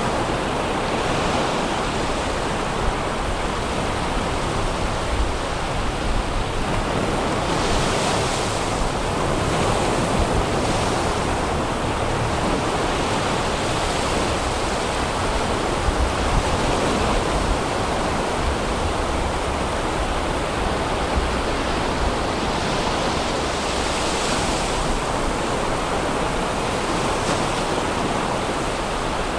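Sea surf breaking on a sandy beach: a steady wash of waves that swells every few seconds as each one breaks.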